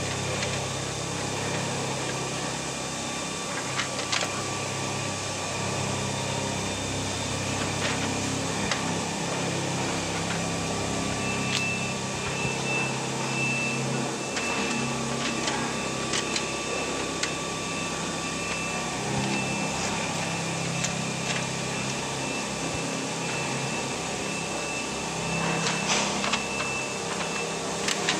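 Steady hum of factory machinery, with a high beep repeating evenly from about midway almost to the end and a few scattered clicks and knocks.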